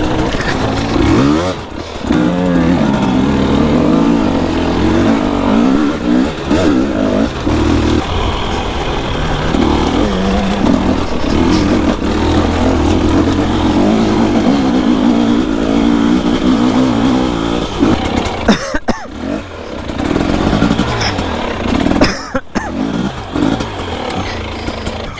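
Two-stroke enduro motorcycle engine being ridden hard off-road, the revs rising and falling with the throttle, cut back sharply a few times: near the start, about two-thirds of the way through, and again shortly after.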